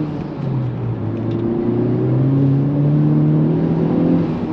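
Honda Civic Type R's turbocharged 2.0-litre four-cylinder on its pretty quiet stock exhaust, heard from inside the cabin: a steady low engine drone that dips briefly, then climbs slowly in pitch as the car accelerates.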